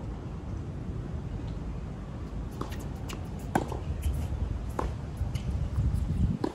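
Tennis ball struck by rackets and bouncing on a hard court: a string of short sharp pops a second or so apart, beginning two and a half seconds in, the loudest about three and a half seconds in. A steady low rumble lies underneath.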